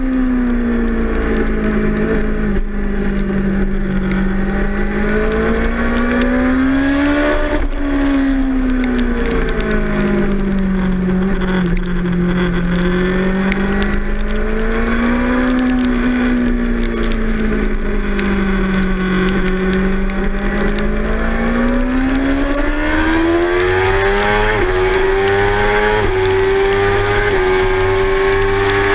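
2006 Suzuki GSX-R 600's inline-four engine heard onboard at racing speed, its note falling and rising several times as the bike slows for corners and drives out of them. Over the last several seconds the engine pulls hard and its pitch climbs steadily as the bike accelerates past 100 mph.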